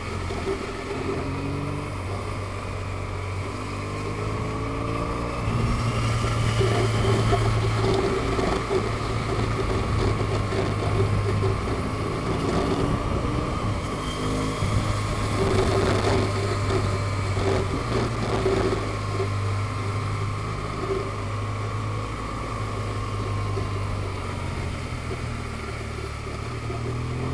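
Vehicle engine running while under way, with wind noise. The engine note climbs in short steps several times as it speeds up and changes gear.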